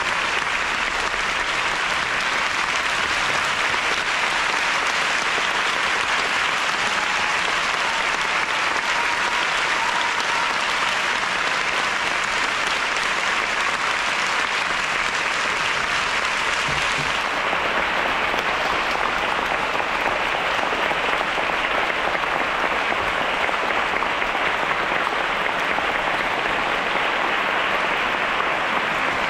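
A large theatre audience applauding steadily through a curtain call, sounding duller from a little past halfway.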